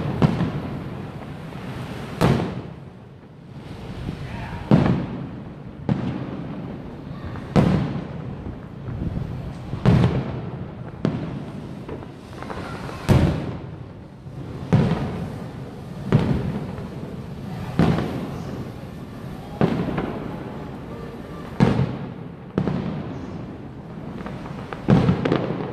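Aerial firework shells bursting in a steady barrage, a deep boom every second or two, each trailing off in a rolling echo.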